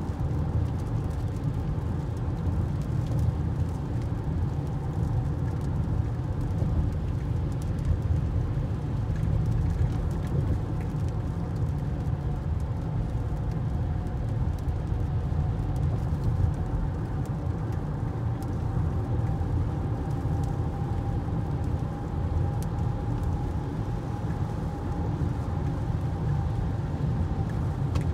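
A car driving on a rain-wet freeway, heard from inside the cabin: a steady low rumble of road and engine noise with tyre hiss, and a faint tone that drifts slightly up in pitch in the second half.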